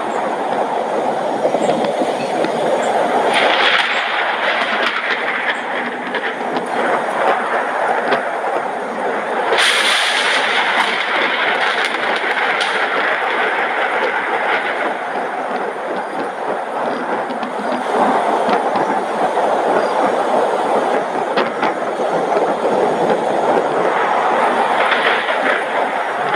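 Steady rushing noise of a thunderstorm's rain and wind. It swells louder about four seconds in, again for several seconds from about ten seconds in, and near the end.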